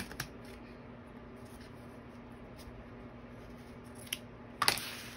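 Scissors snipping through fabric: a few faint cuts, then a louder snip near the end, over a faint steady hum.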